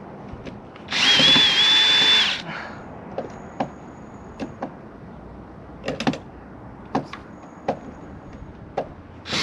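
Cordless drill running for about a second with a steady whine, backing out a screw, followed by scattered light clicks and knocks of handling and another brief burst at the end.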